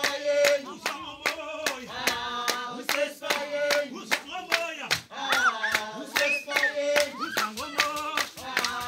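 Voices singing together over fast, steady hand clapping, several claps a second.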